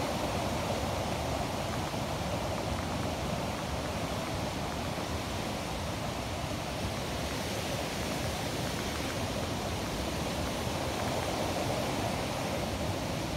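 Steady, unbroken rush of a mountain stream or waterfall.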